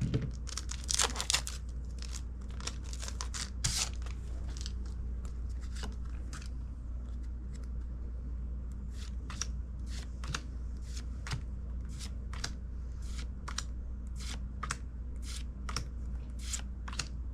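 A foil Pokémon booster pack wrapper torn and crinkled open over the first few seconds, then a run of short soft clicks, about one to two a second, as the trading cards are slid one by one off the stack.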